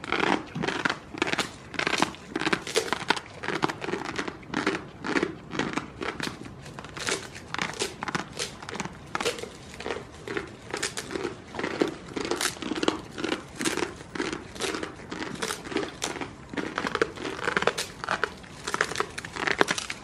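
Goats biting and chewing dry fodder and straw close up: a steady run of crisp crunches, about two or three a second.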